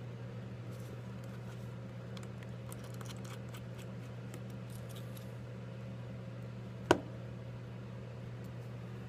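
Faint small metallic clicks and ticks of a precision screwdriver removing the bottom screws of an iPhone 5s, over a steady low hum. One sharp tap stands out about seven seconds in.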